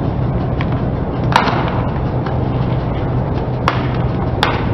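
A car tyre rolling slowly over plastic toy hair accessories (a comb, hand mirror and brush), the plastic cracking sharply under the tyre once about a second and a half in and twice near the end, over the steady low hum of the car.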